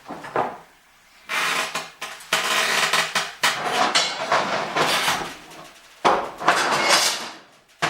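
Steel parts of a metal display rack clanking and scraping in three long bouts as the rack is shifted, with a brief knock at the start.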